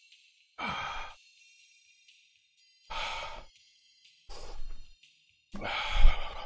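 A man breathing out hard four times in heavy, forceful exhales, each under a second long with pauses between them; the last one, near the end, is the loudest. He is panting through the burning of an extremely hot chili chip.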